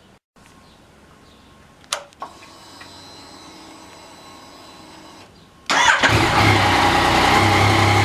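A click about two seconds in and a faint steady hum. Then, near six seconds in, the 2020 Yamaha MT-09's inline three-cylinder engine is started and settles into a steady idle. This is its first run after an oil change, to circulate fresh oil into the empty new filter.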